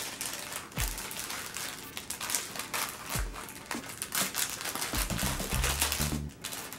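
Clear plastic packaging crinkling and clicking as a bag is handled and opened by hand. Background music runs under it, with a low beat and, near the end, a low bass line.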